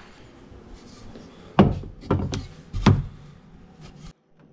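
Four sharp knocks and clacks of hard leftover building materials being handled and set down, about a second and a half in, with the sound cutting off suddenly near the end.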